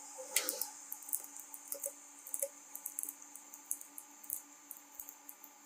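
Soft-bristled keyboard cleaning brush swept over the keys: short, irregular high scratchy strokes with a few light clicks, over a faint steady hum.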